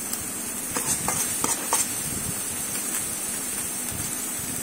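Masala paste sizzling steadily in an aluminium kadai, with a spoon scraping and knocking against the pan a few times in the first two seconds as spice powder is stirred in.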